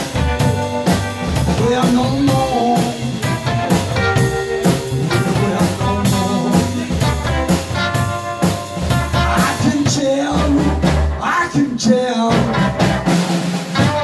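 Live blues band playing: electric guitar, upright double bass and drum kit behind a male singer.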